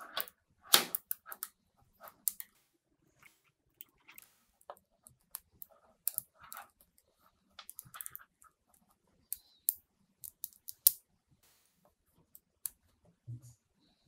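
Small magnetic balls clicking as they snap together while a chain of them is wound around a cluster. The clicks are sharp and irregular, with a few louder snaps near the start and about eleven seconds in.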